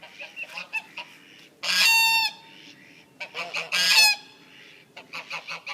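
Geese honking: two loud, drawn-out honks about two and four seconds in, with a run of short, quick calls between and after them.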